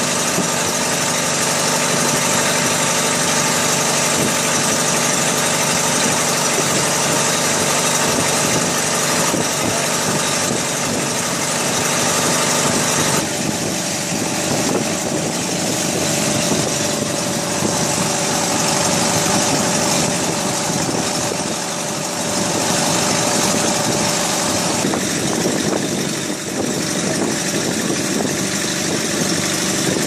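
Boat engine running steadily under way, with water rushing along the wooden hull.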